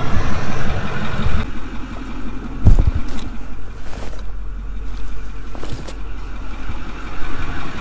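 Vehicle engine idling with a steady low hum, with a loud thump nearly three seconds in and a few sharp clicks.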